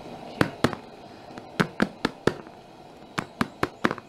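An aluminium cake tin filled with fruit cake batter is knocked down against a tiled floor about ten times, in quick groups of two, four and four. This settles and levels the batter in the tin.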